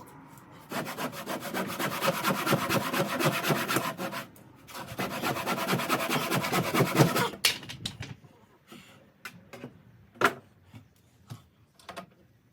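Hand saw cutting through timber in rapid, even back-and-forth strokes, in two runs with a short pause between. The sawing stops about seven seconds in, and a few scattered knocks and taps follow.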